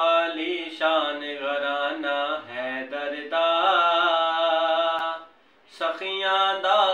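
A man's voice reciting a naat, an Islamic devotional poem, sung in long held melodic lines without instruments. There is a short breath pause about five seconds in.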